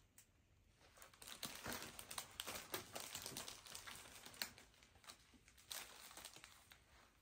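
Gift packaging crinkling and rustling as it is handled and unwrapped. It starts about a second in, comes as a dense run of small crackles, and dies away near the end.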